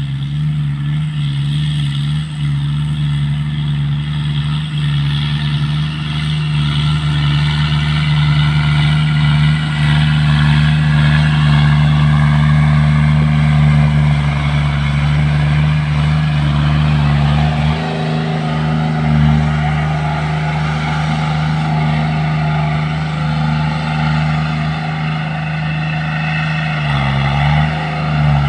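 Kubota tractor's diesel engine running steadily while it pulls a rotary tiller through a field. It is loudest in the middle as the tractor passes close, and the engine note dips briefly about two-thirds of the way in and again near the end.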